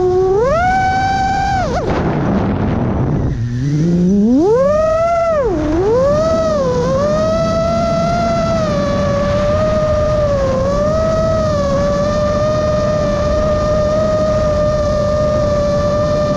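Chimera 7.5 FPV quadcopter's motors whining. Their pitch climbs sharply about half a second in, then falls steeply to a low hum amid a rushing noise around three seconds in. It surges back up, dips again, and settles into a steady high whine with small dips.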